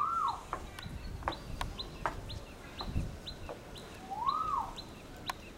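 Birds calling: a short high chirp repeated about three to four times a second, with a longer whistle that rises and falls twice, once at the start and again about four seconds in.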